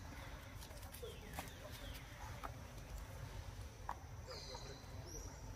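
Young macaques scrambling on a hanging rubber tyre swing: faint scattered knocks and rustles, the sharpest just before four seconds in, over a steady low rumble, with two short high chirps in the second half.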